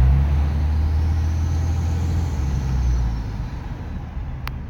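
2007 Ram 2500's 5.9 Cummins straight-six turbo diesel pulling hard with a deep drone, while a faint high turbo whistle rises in pitch, peaks about two seconds in and falls away as the engine eases off. The owner hears an odd second whistling note mixed in with the turbo that has appeared since he fitted a Twister resonator. A single sharp click near the end.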